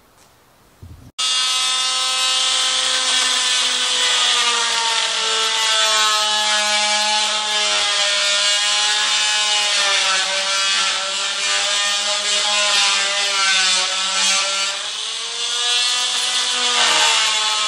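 Handheld corded rotary tool cutting into plywood: a loud motor whine with a hiss of cutting, its pitch sagging and recovering as the bit is pushed through the wood. Starts abruptly about a second in.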